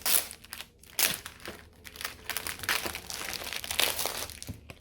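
Packaging crinkling and tearing in irregular bursts as it is opened by hand.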